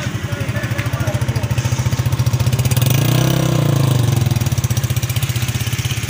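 Honda CG125's single-cylinder four-stroke engine running with an even exhaust beat, rising in pitch and loudness about three seconds in and then easing back as the bike pulls away.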